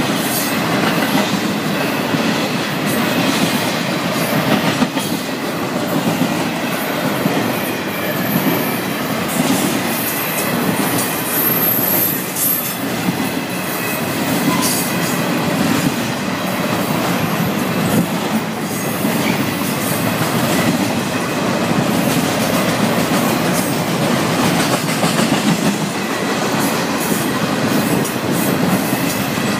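Florida East Coast intermodal freight train rolling past, its flatcars of trailers and containers making a steady rumble and clatter of steel wheels on the rails. A short high squeal comes about twelve seconds in.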